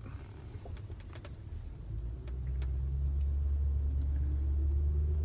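Car engine and road rumble heard from inside the moving car; about two seconds in the engine pulls harder and the rumble grows louder, with a faint rising whine as the car picks up speed.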